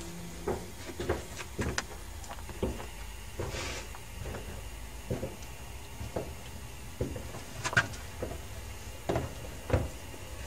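Footsteps and handling knocks on a wooden floor: about a dozen irregular thumps and clicks, roughly one every half second to a second, over a faint steady hum.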